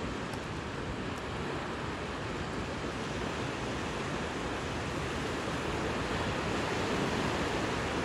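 Sea waves washing in a steady rush of surf, getting a little louder in the second half.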